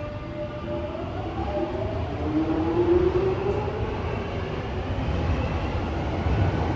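Underground train pulling away, its traction motors whining in several tones that rise steadily in pitch as it gathers speed, over a low running rumble.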